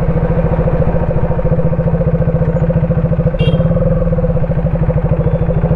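KTM RC 390's single-cylinder engine running steadily, its firing pulses even throughout, with a brief click about halfway through.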